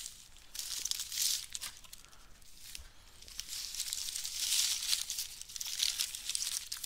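Brown kraft wrapping paper being torn and crumpled by hand as a parcel is unwrapped, in a run of crinkly rips. It goes quieter for a moment in the middle, then louder and denser in the second half.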